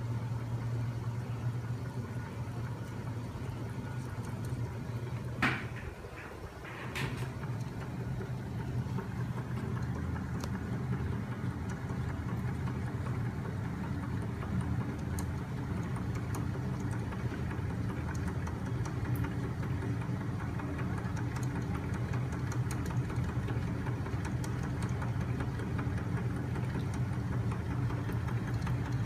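Homemade magnet-motor machine running, its flywheels and crank linkage turning with a steady low hum and faint scattered ticks. Two sharp clicks come about five and a half and seven seconds in.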